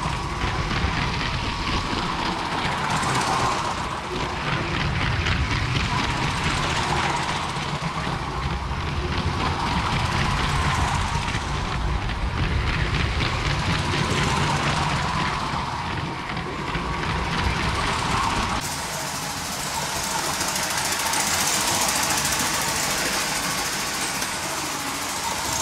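Electric train motors of motorized brick-built model trains whirring, with wheels rattling and clicking steadily over plastic toy track. About 18 seconds in the sound changes abruptly to less rumble and more hiss.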